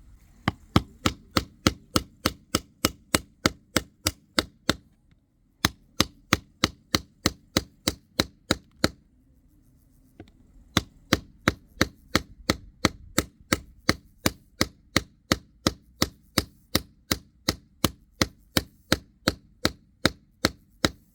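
Rapid, evenly spaced striking blows, about three a second, on a plastic screwdriver handle as it is hacked off the shaft. The blows come in three runs, with brief pauses about five seconds in and again around nine to ten seconds.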